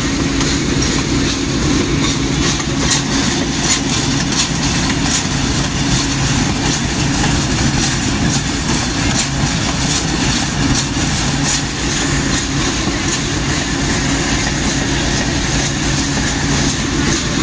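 Moving diesel locomotive: a steady engine hum over the rumble of wheels rolling on the rails, with irregular clicks, thickest through the first two-thirds.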